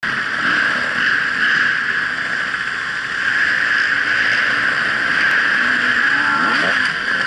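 Dirt bike engine running at low speed, heard through a rider's helmet-mounted camera as a steady buzzing drone, with a brief rise in pitch about six and a half seconds in as the throttle is opened.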